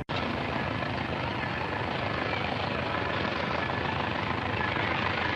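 Steady 1920s-style city street ambience: a continuous, dense wash of traffic noise, broken only by a split-second dropout at the very start.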